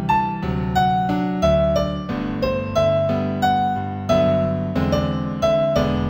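Gentle new-age piano music in G major: melody notes struck about every half second and fading, over sustained low chords.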